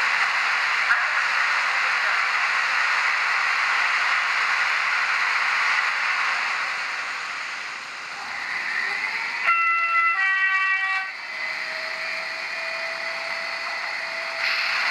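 Digital sound of a model electric locomotive played through its small onboard speaker: a steady hissing running sound, with a two-note horn blown about nine and a half seconds in for about a second and a half.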